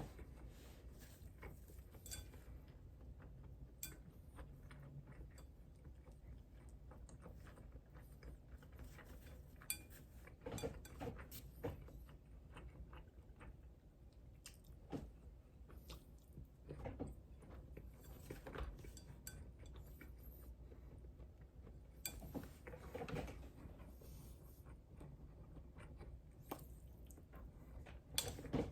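A person eating quietly: chewing, with scattered small clicks and clinks of cutlery on a dish, over a low steady hum.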